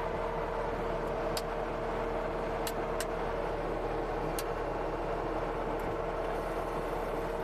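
CASE TR270B skid steer's diesel engine running at a steady pitch, heard from inside the cab, with a few light clicks about one and a half to four and a half seconds in.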